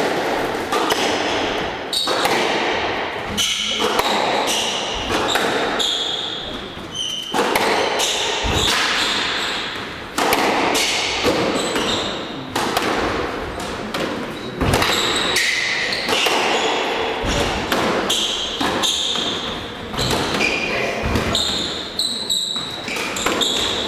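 Squash rally: the ball cracking off racquets and the court walls every second or so, with short squeaks of shoes on the wooden floor between shots, echoing in the court.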